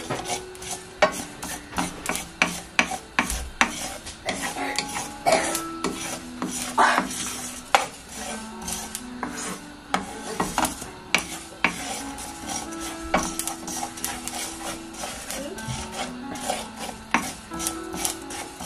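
Sesame seeds being stirred around a dry pan as they toast: repeated scraping strokes against the pan, with sharp clicks scattered among them.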